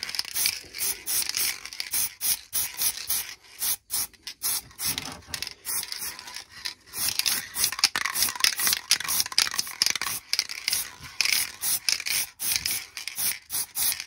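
Aerosol spray paint can hissing in many short bursts with brief gaps, several a second, as paint is sprayed on in quick passes.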